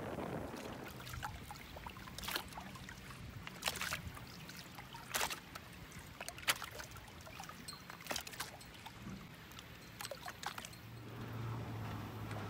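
Small waves lapping against the hull and swim platform of a MasterCraft ski boat, with a sharp splash or slap every second or two. A low steady hum runs underneath and grows stronger near the end.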